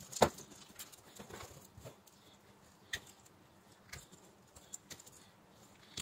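Small black-handled pliers-type hand tool working at the ends of thin white wires, with handling of the wire bundle: one sharp click about a quarter second in, then sparse faint ticks and light rustling.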